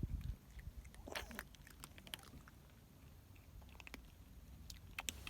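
Cats chewing food: faint, irregular crunching clicks scattered through, with a brief low rumble at the start.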